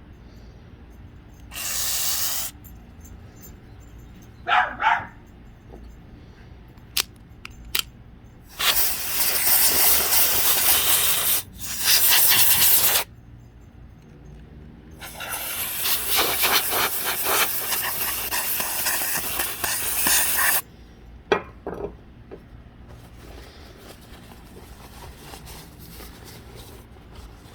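Aerosol hissing from a WD-40 can and a compressed-air duster sprayed into a Microtech Ultratech OTF knife: one short burst, then several long bursts of several seconds each. Between the bursts come sharp clicks of the knife's blade firing out and snapping back.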